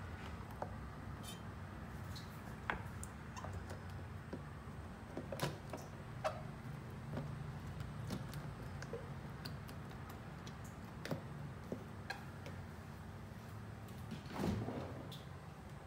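Scattered light clicks and knocks as a lidded food storage container of cut dragon fruit is handled on a kitchen counter, with a louder knock near the end, over a steady low hum.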